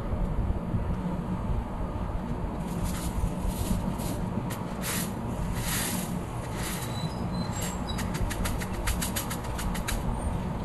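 Small resin diamond-painting drills clicking and rattling in a plastic tray as it is tipped and shaken: scattered ticks at first, then a quick run of them about eight seconds in. A steady low rumble runs underneath.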